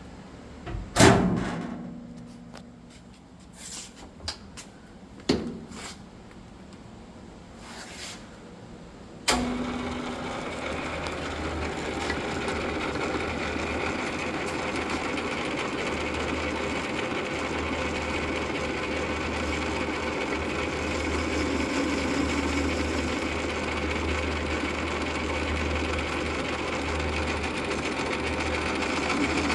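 A thump and a few knocks, then about nine seconds in a South Bend Heavy 10 toolroom lathe starts with a sharp click and runs steadily, its 3-phase motor giving a low hum.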